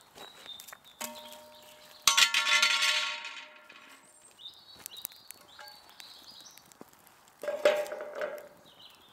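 Steel car-wheel-rim fire pit struck and ringing, a light clang about a second in and a louder one a second later that rings on, as the fire is poked with a stick. Near the end a wire grill rack clatters down onto the metal rim.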